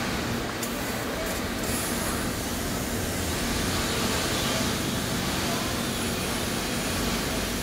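Steady noise of factory machinery running: a continuous hiss over a low hum, with a few faint ticks in the first two seconds.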